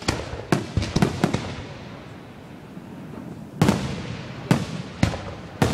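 Aerial firework shells bursting overhead. There is a quick run of four bangs in the first second and a half, a lull of about two seconds, then four more bangs about half a second to a second apart, each trailing off in echo.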